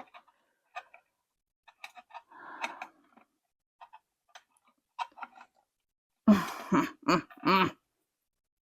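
Scattered small clicks and ticks, with a brief scrape about two and a half seconds in, as spade connectors and wires are worked loose from a lathe's starting relay. About six seconds in come three short vocal sounds from the person doing the work.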